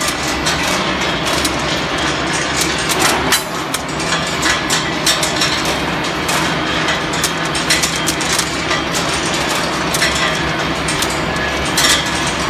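Steel balls clattering out of a steel ball quenching machine's turning drum into a steel discharge chute: many irregular sharp metallic clacks over the machine's steady low running hum.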